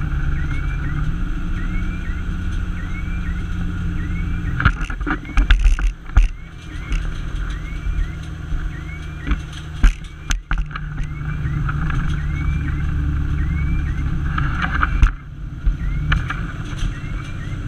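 Fire engine-tanker's diesel engine running steadily under road load, heard from inside the cab, with a faint short rising tone repeating about once a second. A cluster of knocks about five seconds in and single thumps about ten and fifteen seconds in.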